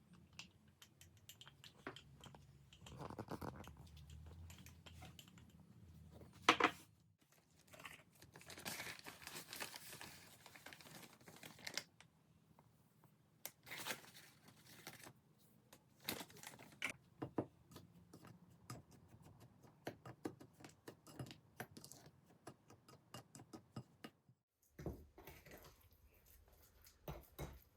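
Faint rustling and crinkling with scattered light clicks and knocks from things being handled in a home kitchen, one sharper knock about six and a half seconds in.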